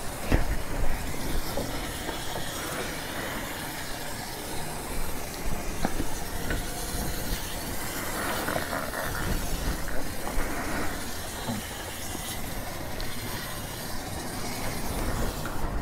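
High-pressure water spray from a car wash wand hissing steadily as it hits a 50cc scooter and the wet concrete floor.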